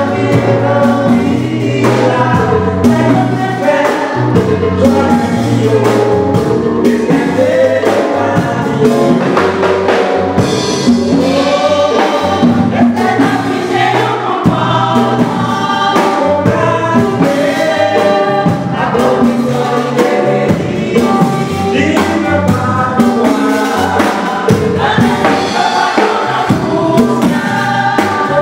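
Women's gospel choir singing in harmony with a male lead singer, over a band with a bass line and a steady drum beat.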